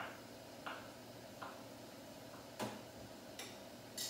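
Kitchen knife chopping halloumi into small cubes on a cutting board: light, single knife strikes roughly every 0.7 seconds, about seven in all, with one louder knock about two-thirds of the way through.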